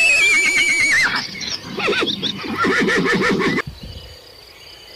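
A horse whinnying: one long quavering neigh that starts high and falls, then lower wavering calls, cutting off suddenly about three and a half seconds in.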